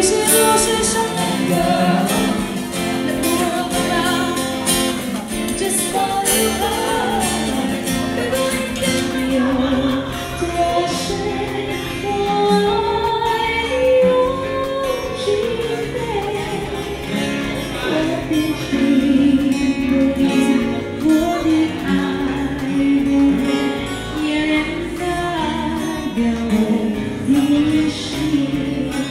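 Music: a song with a singing voice over guitar.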